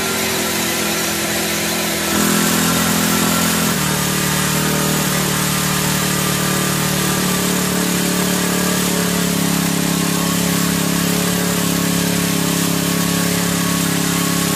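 Four-stroke OHV brush cutter engine running fast at a high idle, its pitch shifting a couple of times in the first few seconds, then holding steady. It still races with the throttle cable refitted, which the mechanic puts down to the carburettor's idle screw being set too far in.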